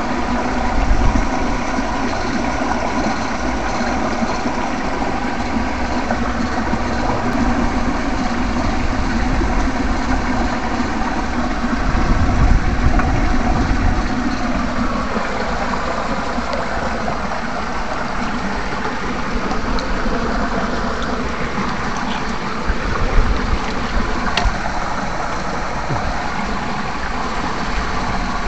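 Steady electrical buzzing hum of an electrofishing shocker running while its electrode rod is worked in the water. Its pitch sags a little about halfway through.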